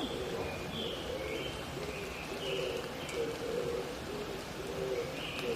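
Oriental turtle doves (mountain pigeons) cooing in short repeated low notes, with a higher bird call repeating about twice a second, over a steady hiss of water dripping in a forest after rain.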